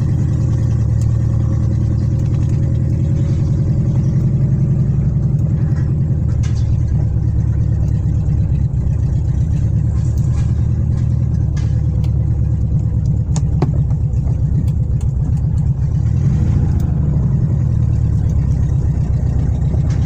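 ZAZ-968 Zaporozhets's rear-mounted, air-cooled V4 engine running at a steady speed.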